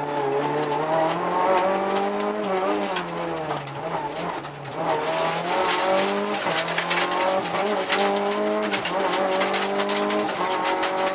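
Rally car engine heard from inside the cabin at stage pace, revs climbing and dropping through gear changes and corners, falling away about four seconds in and again near the end before pulling back up. Frequent sharp clicks and knocks run over the engine.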